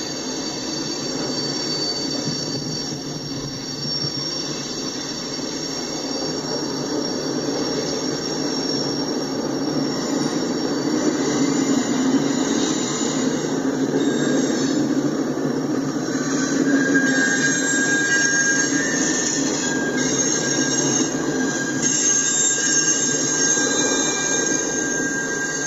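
Freight cars rolling past with a steady rumble, their steel wheels squealing in thin high tones on the curving track. The train gets louder about halfway through, and a second, lower squeal tone joins after about 16 seconds.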